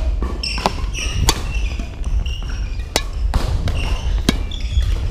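Badminton rally: about four sharp cracks of a racket striking a shuttlecock, with short squeaks of court shoes on the wooden gym floor between them and a low rumble underneath.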